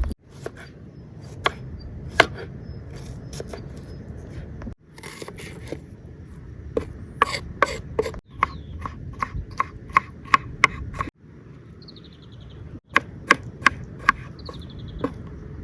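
Firewood being chopped: a series of sharp wooden knocks, coming two or three a second in places, broken by abrupt cuts.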